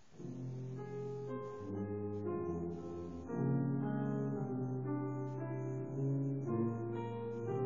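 Tuba and piano music begins: the first sustained low notes come in right at the start after near silence, and the piece goes on steadily.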